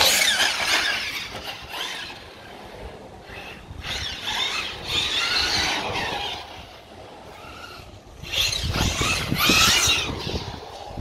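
Electric-converted Agama A8T 1/8-scale RC truggy, its 2650kv brushless motor and 120 A ESC whining as it accelerates and lets off: three runs of about two seconds each, pitch rising and falling.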